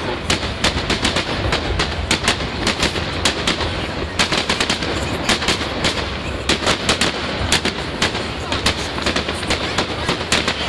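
Fireworks display in full barrage: a dense, unbroken run of sharp bangs and crackles, several a second, over a steady low rumble.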